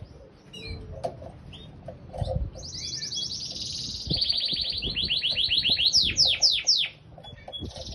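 Domestic canary singing. A fast high trill starts about two and a half seconds in, runs into a series of quicker repeated notes, and ends in a few loud downward-sweeping notes near the end. Scattered short chirps come before the song.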